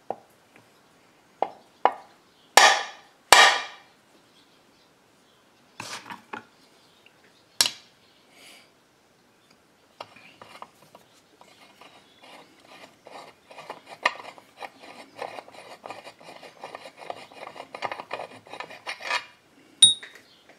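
Light mallet taps on a threaded steel tool rod screwed into the clutch-side end of an MS660-clone crankshaft, knocking the crank over to center it in the joined crankcase halves: a handful of sharp knocks in the first four seconds and two more near six and eight seconds. From about ten seconds in, a long run of quick small metal clicks and rubbing as the tool is worked by hand at the crank end, ending with a bright clink of steel rods knocked together.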